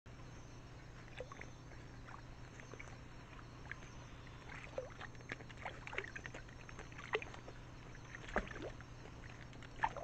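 Water sloshing and splashing in a small rock pool as a nine-banded armadillo drinks and wades through it: a scatter of soft splashes and drips, a few louder ones about seven and eight seconds in. A steady low hum runs underneath.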